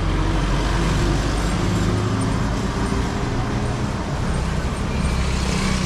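Road traffic noise: a motor vehicle's engine running close by over a steady rush of street noise.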